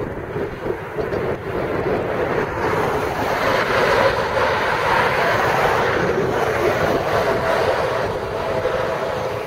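Wind buffeting the microphone over highway traffic noise; a rush of tyre and road noise from a passing vehicle swells about three seconds in, peaks midway and fades toward the end.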